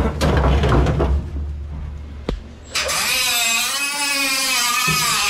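Low rumbling handling noise and a sharp click. About three seconds in, a cordless angle grinder starts cutting through the old furnace's sheet metal, its pitch wavering as the disc bites into the metal.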